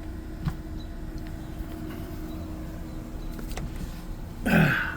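Steady low hum of an idling car, with a faint click about half a second in and a short sweeping sound that falls in pitch near the end.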